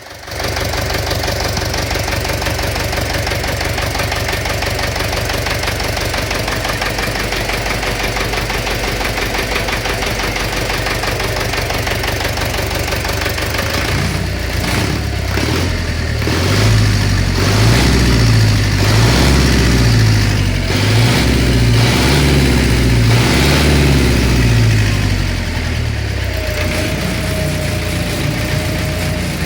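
Engine running with a knock, the fault being demonstrated. It idles steadily for about half the time, runs louder at a changing, higher speed for about twelve seconds, then drops back to idle.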